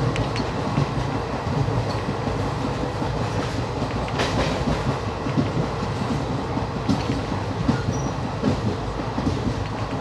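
Passenger train running along the track, heard from the carriage doorway: a steady rumble of wheels on rails with a few sharper clacks.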